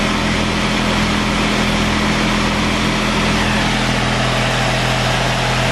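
Okuma LB3000 EXII CNC lathe spindle and chuck spinning at 2500 RPM: a steady hum with a whirring hiss over it, holding constant.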